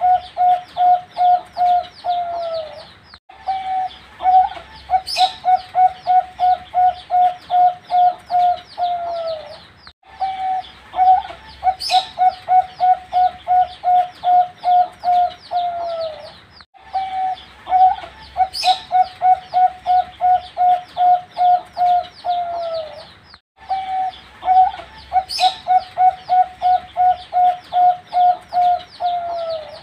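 Young zebra dove (perkutut) cooing: about four phrases, each a fast, even run of short staccato coos ending in a falling note, with a short pause between phrases. A brief sharp click comes once in each phrase.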